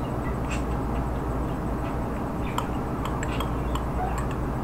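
A metal spoon scraping and clinking against a cup while scooping up soft frozen banana-peanut butter smoothie, a few light clicks mostly in the second half, over a steady low hum.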